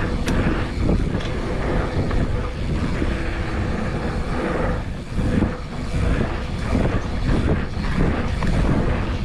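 Wind buffeting the action camera's microphone as a mountain bike rolls over a dirt pump track, with tyre rumble and bike rattle, the loudness swelling and dipping with the rollers.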